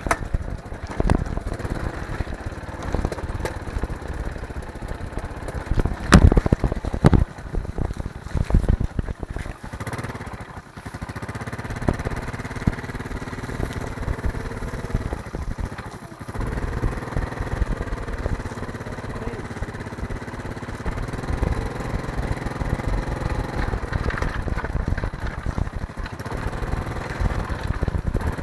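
A small engine running steadily, with a series of knocks and jolts in the first several seconds, the loudest about six seconds in.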